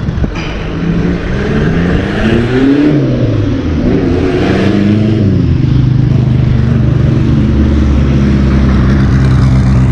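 A motor vehicle's engine, loud and close. Its pitch rises and falls for a few seconds, then it settles into a steady run for the rest of the time.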